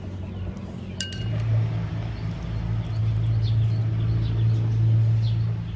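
A steady low engine hum that grows louder about a second in and holds, with a single ringing metallic clink just before it swells and a few faint bird chirps above.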